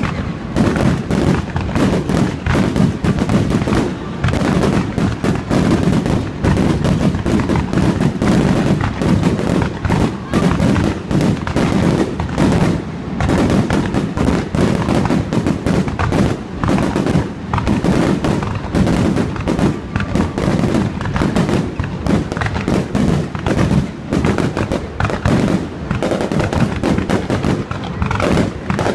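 Fireworks display going off in a dense, continuous barrage of bangs and crackles, with no pause.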